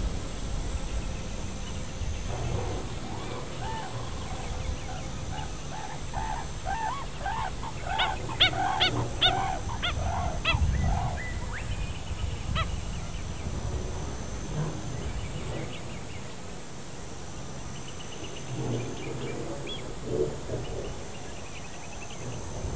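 Wetland birds calling off camera: a quick run of short, arching notes, about three or four a second, from about six to eleven seconds in, then a few scattered fainter calls, over a low steady rumble.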